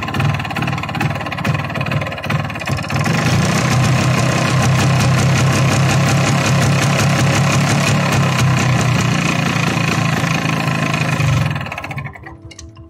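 MZ ETZ 250's single-cylinder two-stroke engine running, unsteady for the first few seconds and then held steady at raised revs with the lights on, while its charging output is being tested. The engine sound falls away abruptly near the end.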